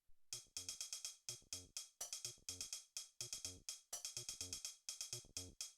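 Acid bassline from a Behringer TD-3 analogue bass synth: short staccato notes in a fast, gapped sequenced pattern, layered with drum-machine hi-hats from an Elektron Model:Samples.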